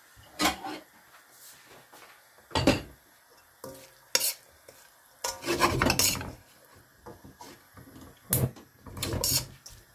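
Metal spatula scraping and clattering against a wok as vegetables are stir-fried, in irregular strokes with short pauses, the longest scrape about five seconds in.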